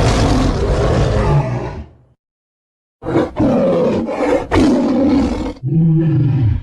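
Stock animal roar sound effects: a roar about two seconds long, a second of silence, then a second roar broken by two short gaps, and a shorter, lower-pitched roar that rises and falls near the end.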